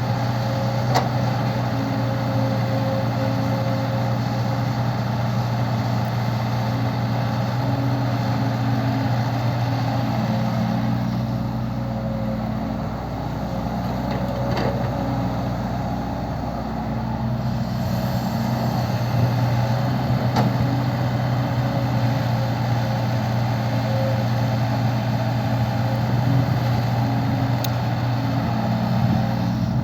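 Heavy diesel engine running steadily with a low hum, easing off slightly partway through, with a few sharp knocks.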